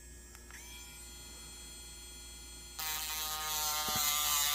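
A small electric rotary tool starts running about three seconds in, a steady pitched buzz with a gritty hiss as it lightly sands a steel lock pick to rough up its surface for adhesive.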